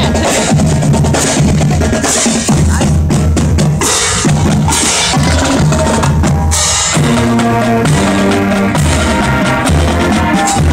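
Marching band passing close by: bass drum, snare drums and cymbals beating out a steady rhythm, with the horns coming in with held notes about seven seconds in.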